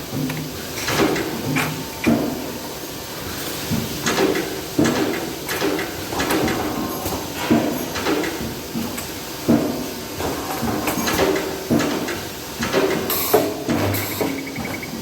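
Factory metal-press machinery working in cycles: repeated clunks and clatter, roughly one a second.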